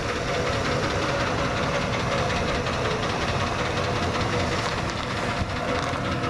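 Ford F-150 pickup's engine running steadily at low speed as the truck pulls forward and turns past close by.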